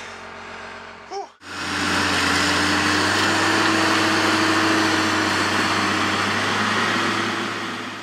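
JCB Fastrac tractor's diesel engine running steadily, heard as a quiet hum at first. After a sudden cut about a second and a half in, it runs loud and even, with a strong hiss over a steady drone.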